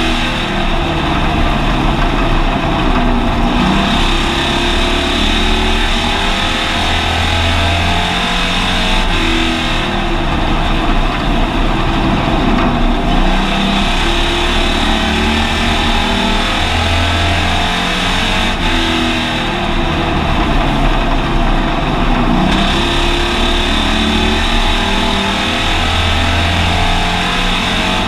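Hobby stock race car's engine at racing speed, heard from inside the car, rising and falling in a cycle about every nine to ten seconds as the driver accelerates down the straights and lifts for the turns, lap after lap.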